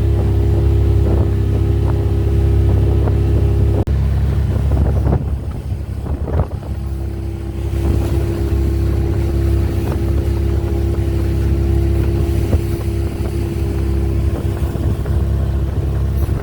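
Boat engine running with a steady drone. It eases off for a few seconds about four seconds in, then picks up again.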